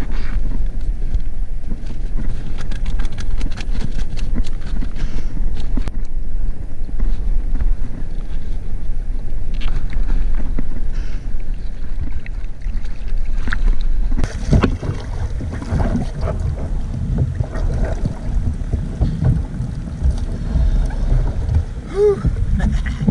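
Wind buffeting the microphone of an action camera on a kayak at sea, a steady low rumble, with scattered clicks and rustles of gear being handled during the first half.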